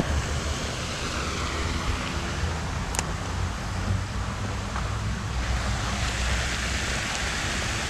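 Steady rushing outdoor noise with a fluctuating low rumble, typical of wind on the microphone. One sharp click comes about three seconds in.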